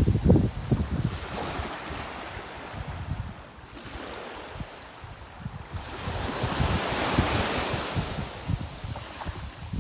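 Sea waves washing up on a beach, with wind buffeting the microphone in low rumbling gusts, strongest at the start. Partway through, the hiss of a wave swells and peaks, then eases near the end.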